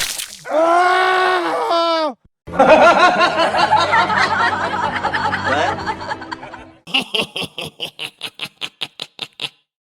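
Meme sound effects played back to back: a short pitched, arching cry, then several seconds of laughter, then a run of quick repeated bursts, about four or five a second, that fade away near the end.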